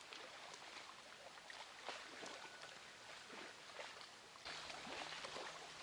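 Quiet outdoor background hiss with scattered soft clicks; the hiss rises a little about four and a half seconds in.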